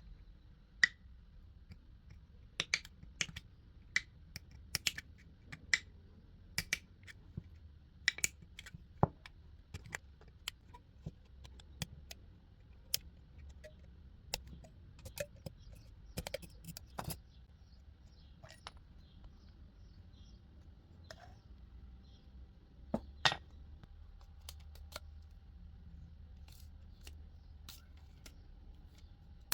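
Scattered sharp clicks and light knocks of small hard parts and tools being handled, irregular and thinning out after the first half, with a faint steady hum underneath.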